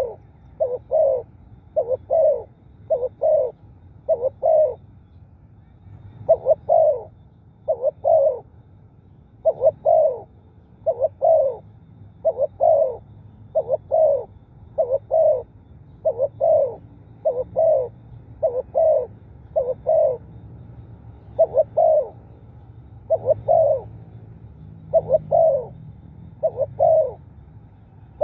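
Spotted dove cooing: short low coos in pairs and small groups, repeating every second or two without a break.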